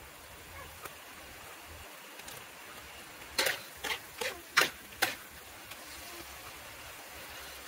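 Metal spatula knocking and scraping against a wok, about six sharp clanks in quick succession a bit over three seconds in, over a faint steady hiss.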